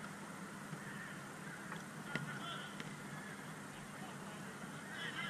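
Distant players on a five-a-side football pitch shouting and calling, with two sharp knocks of the ball being played about two and three seconds in, over a steady low hum.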